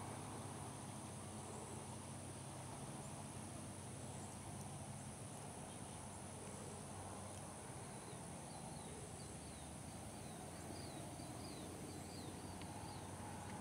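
Faint outdoor ambience: a steady high insect drone over a low steady hum, with a run of short, high chirps in the second half.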